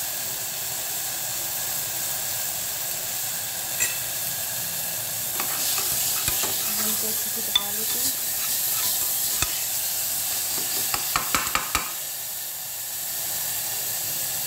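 Chopped onion and tomato with freshly added spices sizzling in a pressure cooker while a spoon stirs them, scraping and clinking against the metal pot. Single clinks come every second or two, then a quick run of clinks a little before the end.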